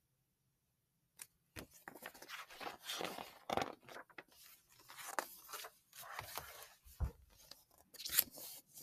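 Paper pages of a picture book rustling and flapping as the book is handled and leafed through, in short irregular crackles with a soft low thump about seven seconds in.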